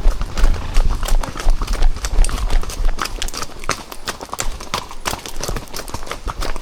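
Horses' hooves clip-clopping along a trail, many quick irregular hits from several hooves, over a low rumble.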